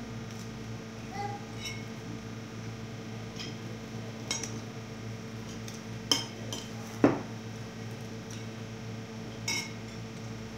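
Dishes and cutlery on the table clinking and knocking now and then, about seven short sounds, the loudest about seven seconds in, over a steady low hum.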